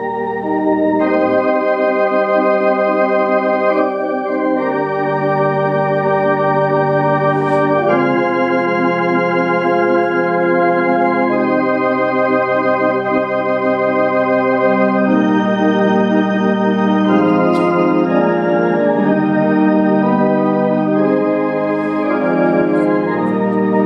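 Welte-Mignon reproducing theater organ, with about 1,100 pipes, playing a slow, lovely tune in sustained chords that change every second or two.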